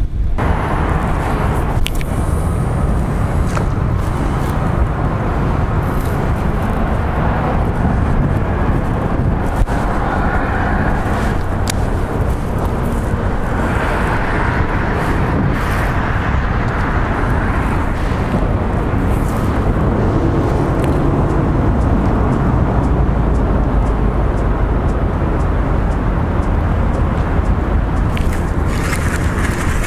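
Wind buffeting the camera's microphone: a loud, steady low rumble with a few light clicks.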